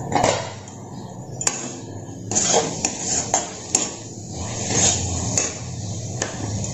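Metal spatula stirring and scraping a thick chopped-mushroom filling around a metal kadai, clinking sharply against the pan about ten times at uneven intervals.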